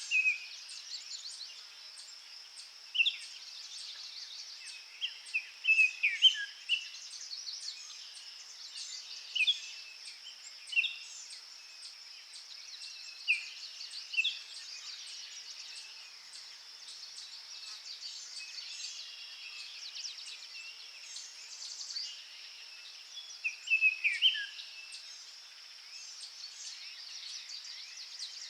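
Small garden songbirds giving short, sharp chirps and calls every few seconds, over a steady high-pitched background drone.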